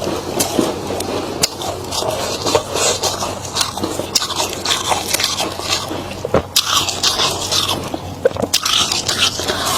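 Close-up crunching and chewing of freezer frost, a dense run of crisp crackles and sharp crunches with scraping in between.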